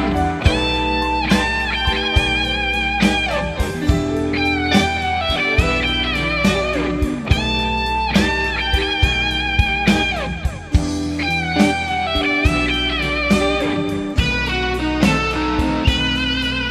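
Instrumental break in a song: a lead electric guitar plays a melody of held notes that slide between pitches, over bass and a steady drum beat.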